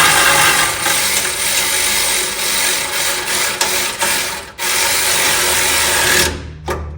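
ACDelco cordless electric impact wrench running a 1/4-inch bolt down into a frame clamp, loud and continuous, with a short pause about four and a half seconds in before a last burst that stops near the end.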